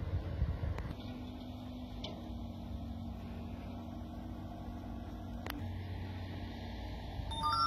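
A steady engine hum from afar, with wind rumbling on the microphone, heavier at the start and again near the end. There is one sharp click about five and a half seconds in.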